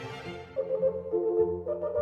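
Instrumental background music with slow, held notes that change about every half-second.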